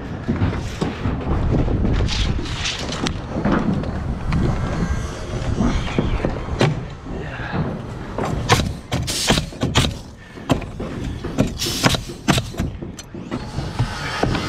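Wind rumbling on the microphone, with a run of sharp knocks and clatter from OSB sheathing and framing lumber being handled, the knocks coming thickest in the second half.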